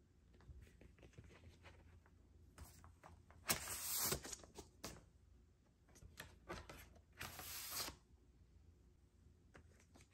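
A vinyl record in its black inner sleeve sliding against the cardboard of an album jacket as it is drawn out of the pocket. Two loud sliding scrapes, one about a third of the way in and one near three quarters through, with light rustles and taps of handling between.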